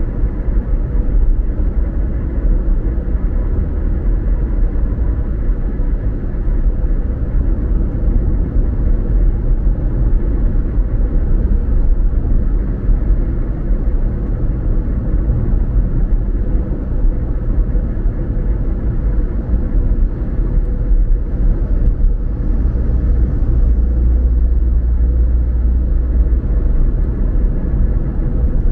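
Car driving along the road: a steady low rumble of tyre and engine noise with a faint thin hum above it. The low rumble swells for a few seconds near the end.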